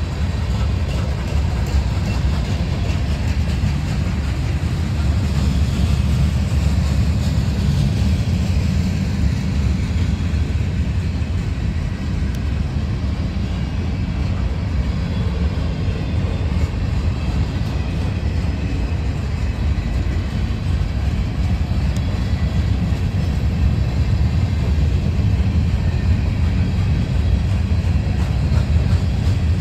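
Freight cars rolling past close by: tank cars, covered hoppers, a boxcar and gondolas, with a steady rumble of steel wheels on rail.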